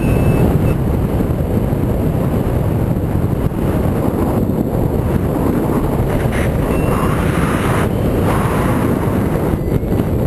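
Loud, steady wind rushing over the microphone of a paraglider-mounted camera in flight.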